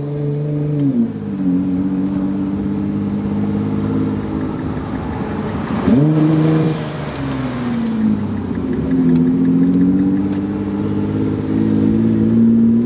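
Nissan GT-R's engine heard from inside the cabin while driving. It drops in pitch about a second in, revs up sharply around the middle, then falls back and settles into a steady drone.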